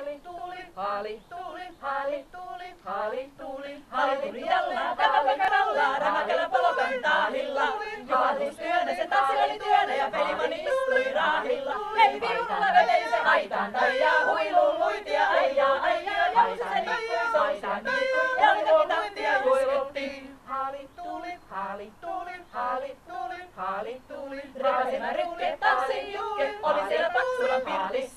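Women's folk choir singing a Finnish folk song a cappella, with no instruments. A single voice leads for the first few seconds, and the whole group joins in about four seconds in.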